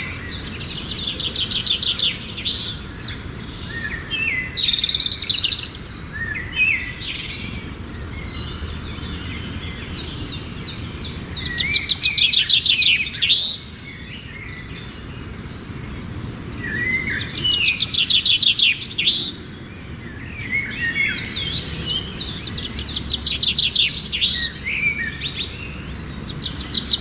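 Budgerigars chattering and warbling: bursts of rapid buzzy trills and short chirps, with louder spells about midway and again near the end.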